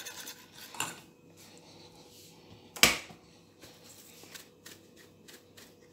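Small kitchen handling sounds: one sharp click about three seconds in, with faint ticks and rustling around it as dried parsley is shaken from a plastic jar into a bowl of wet seasoning.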